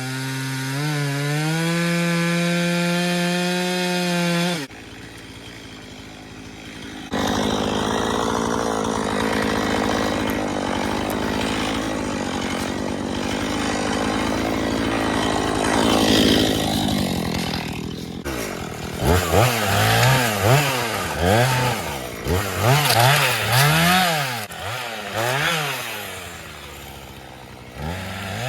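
Two-stroke chainsaw working on a cedar tree. It runs at a steady high speed for about four seconds and drops off briefly. It then cuts steadily through the wood for about ten seconds, and in the last ten seconds it is revved up and down about once a second.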